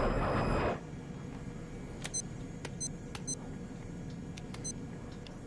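A loud rushing roar that cuts off suddenly under a second in, leaving a low steady hum with a few short electronic beeps and clicks scattered through it.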